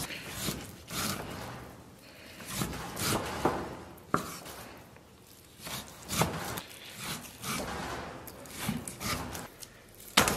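Chinese cleaver cutting pork belly into cubes, the blade knocking down onto a round wooden chopping block at irregular intervals, with a louder knock near the end.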